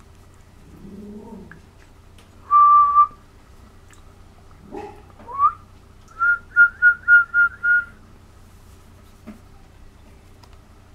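Someone whistling in high, pure notes: one held note, then a note sliding upward, then a quick run of six short tweets at the same pitch.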